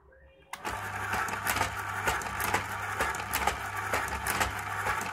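ZCUT-2 automatic tape dispenser starting up about half a second in and running, its motor humming steadily under repeated sharp clicks as it feeds and cuts pieces of tape and sets them onto its turning carousel.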